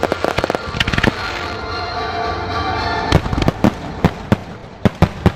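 Firework shells bursting: a quick run of sharp reports in the first second, then a stretch with fewer bangs, then loud single bangs every half second or so from about three seconds in. Music plays underneath.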